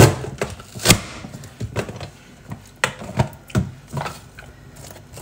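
Manual press-down vegetable dicer chopping onion: the lid is pushed down through the grid blade with a loud clack at the start and another about a second in, followed by a run of lighter plastic clicks and knocks as the chopper is worked and opened.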